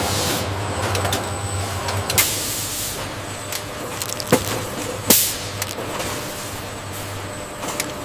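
Automated food-factory production-line machinery running: a steady low hum and hiss broken by irregular sharp clacks, the loudest about five seconds in.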